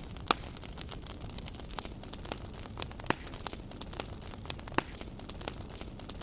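Wood campfire burning, crackling steadily with many small irregular pops and three louder, sharper snaps spread through the few seconds.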